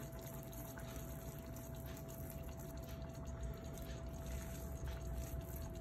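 Faint steady hiss and light crackle of cooking oil heating in a frying pan, hot enough for frying, with a thin steady whine.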